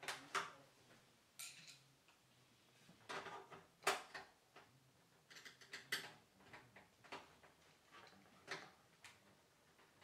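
Irregular clicks, taps and short scrapes of hands working inside a PC case during assembly, parts and cables knocking against the case, about a dozen sharp clicks, with a short scraping about one and a half seconds in.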